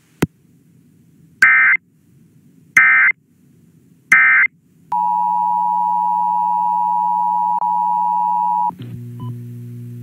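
Emergency Alert System end-of-message data tones: three short, identical electronic screeches about a second and a half apart. Then a steady electronic tone runs for about four seconds and cuts off suddenly, followed by fainter scattered beeps.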